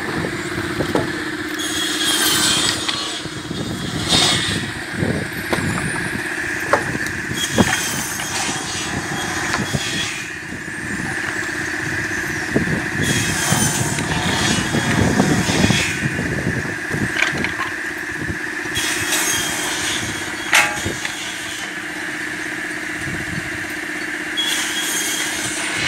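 Automatic cross-cut saw with a pneumatic clamp running with a steady hum while it cuts lumber slabs into firewood. A harsh burst of noise comes every few seconds, with scattered knocks of wood pieces.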